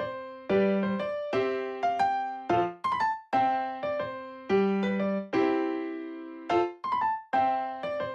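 Background music: a piano-like keyboard playing a light tune of struck chords, each dying away before the next, about one to two a second.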